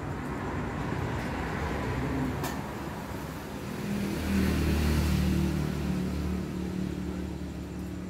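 A motor vehicle's engine passing by: a low hum that grows louder about four seconds in and fades away toward the end.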